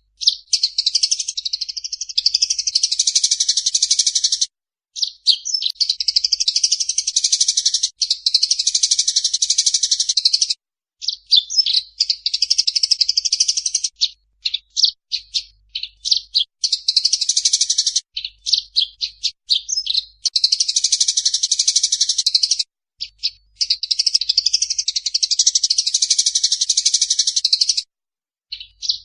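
Eurasian tree sparrows chattering in a fight: long runs of dense, rapid chirping a few seconds each, broken by short pauses, with a stretch of separate quick chirps about halfway through.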